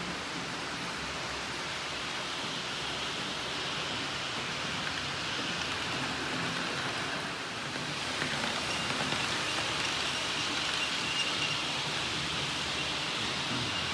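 Electric model trains rolling along the layout's track: a steady rushing of wheels on rails with motor hum, growing louder about eight seconds in as trains pass close, with a faint high motor whine near the end.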